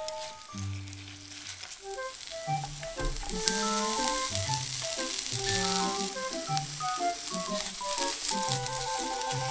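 Potato slices sizzling as they fry in oil in a nonstick pan, with sliced onion added and stirred in with a wooden spatula; the sizzle builds about three seconds in and holds steady. Background music plays throughout.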